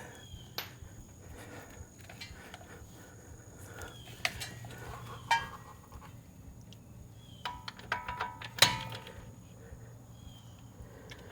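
Scattered metallic clicks and clinks of a hand wrench working the lower caliper bracket bolt on a front brake. A quick run of clicks near the end includes one sharp clink.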